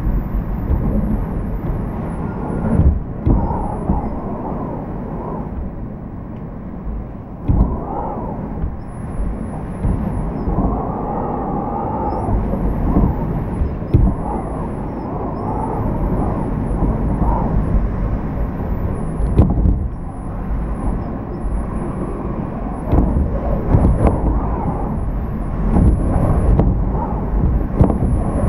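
Typhoon winds gusting and howling, with wind-driven rain; the noise swells into loud surges every few seconds, and a wavering whistle rises and falls in places.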